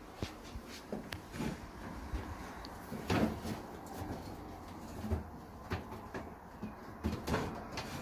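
Scattered knocks and scrapes from handling a wooden pigeon box with a wire-mesh lid while reaching in to catch a bird, the loudest about three seconds in and again near the end.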